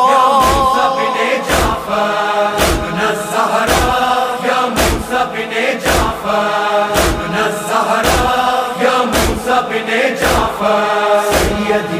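Noha recitation: a chorus of male voices chanting a slow devotional refrain over a steady beat of matam (chest-beating), about one strike a second.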